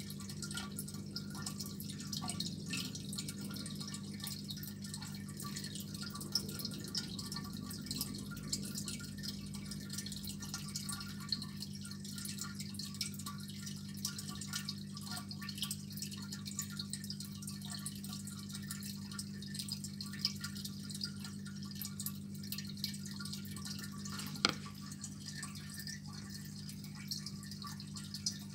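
Aquarium filter running: water trickling and dripping over a steady low pump hum. One sharper click comes near the end.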